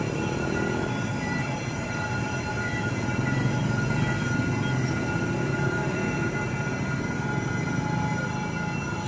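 Low, steady rumble of a train approaching along the line while still out of sight, swelling slightly a few seconds in, with several faint steady high tones over it.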